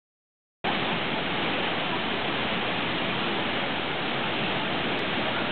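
Kouang Si waterfall: a steady rush of falling water that cuts in abruptly about half a second in and holds an even level.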